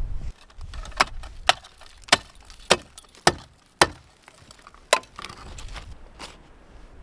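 A series of about seven sharp knocks, roughly every half second, followed by two fainter ones.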